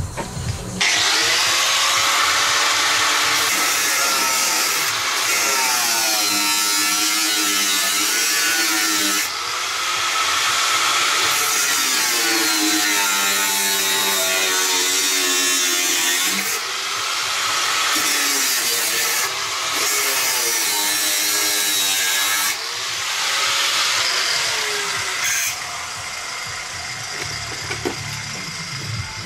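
Angle grinder cutting into rusted car-body sheet metal at the wheel arch. It runs loud and almost unbroken, with its whine sagging and recovering in pitch as the disc bites. It eases off briefly three times and stops about 25 seconds in.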